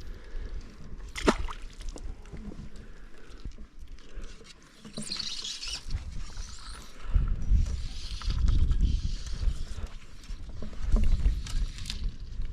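Wind gusting across the microphone in low rumbling bursts, strongest in the second half, with a single sharp knock about a second in and a brief hiss around the middle.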